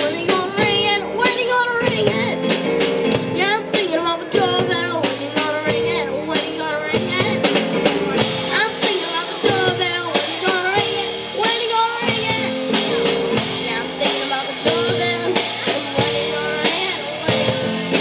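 Live rock band playing, the drums keeping a steady beat under guitar and voice.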